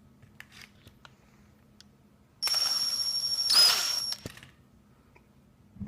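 Power drill running for about two seconds, drilling into a calculator's case. Its high motor whine dips in pitch for a moment as the bit bites. A few light handling clicks come before it.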